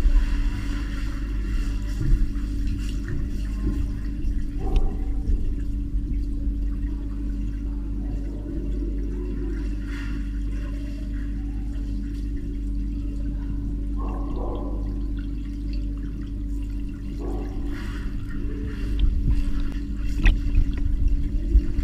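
Muffled pool water heard through a camera held underwater: a deep steady rumble and slosh from a dog paddling nearby, over a steady hum, with a few brief swishes.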